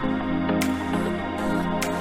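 Background music: a slow new-age style track of sustained chords with a light percussive tick roughly every second, the chord changing at the start.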